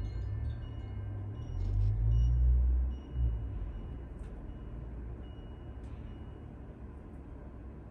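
A carillon chime's last tones ring on faintly and fade, under a low rumble that swells about a second and a half in and dies away after about three seconds.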